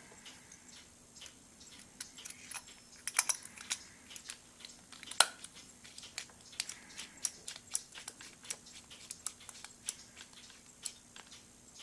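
Small hard clicks and taps at irregular intervals as pen parts are handled and fitted together, with one sharper click about five seconds in.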